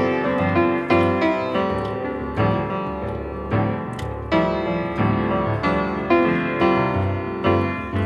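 Background music led by piano, with notes struck at an even, unhurried pace and left to ring.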